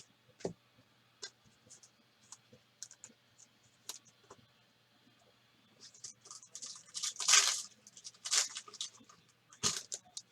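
Trading cards being handled and shuffled: light clicks and taps, then several louder scraping swipes from about six seconds in, the loudest a little after seven seconds.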